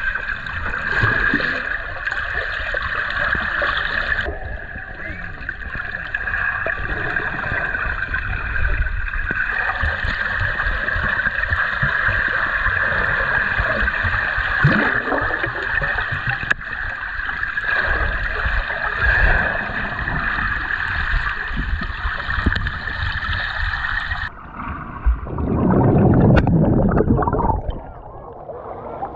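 Muffled water sloshing and gurgling around a camera in the water during snorkelling, with a louder rush near the end.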